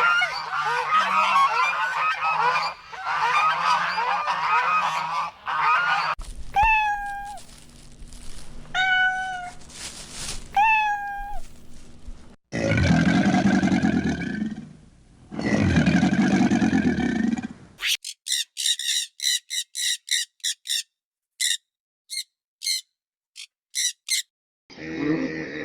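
A run of different animal calls cut one after another. First comes a flock of waterfowl honking over one another. Then three single calls each fall in pitch, then two long low calls, then rapid high chirps in short bursts, and another call begins near the end.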